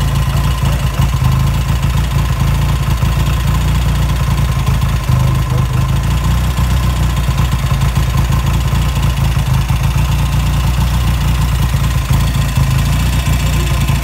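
BSA Gold Star motorcycle engine idling steadily, with a deep exhaust note.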